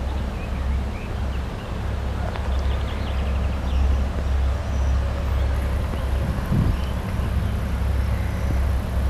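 2M62 twin-section diesel locomotive's two-stroke 14D40 diesel engines working hard, smoking at the exhaust, as it hauls a train of tank cars: a deep, continuous rumble that swells and eases slightly.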